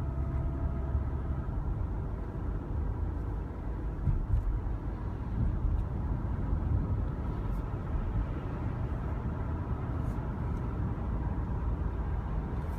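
2010 Toyota Camry engine running steadily, with a noise that the owner puts down to the valves or lifters.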